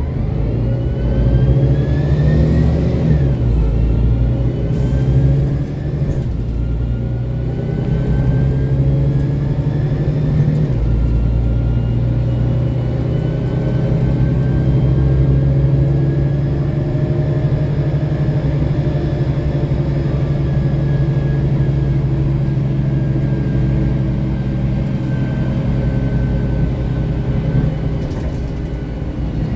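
Mercedes-Benz Conecto city bus heard from inside the cabin, its OM 457 hLA six-cylinder diesel and Voith DIWA automatic gearbox pulling away with a low engine drone and a rising whine. The pitch drops sharply about three seconds in and again about ten seconds in, as the gearbox shifts up, then the bus runs at an almost steady pitch.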